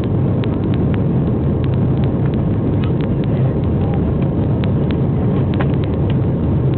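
Airbus A320 jet engines at takeoff power: a steady, loud roar heavy in the low end. Many short, sharp clicks and rattles sound over it.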